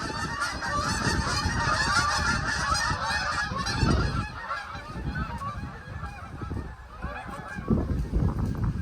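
A flock of geese honking, many calls overlapping, thinning out after about five seconds. Wind gusts rumble on the microphone.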